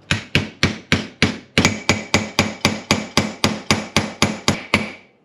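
Steady metal-on-metal hammer taps, about four a second with a brief pause about a second and a half in, each with a short metallic ring: a new bushing being driven into a Hydra-Matic transmission part, going in tighter than expected.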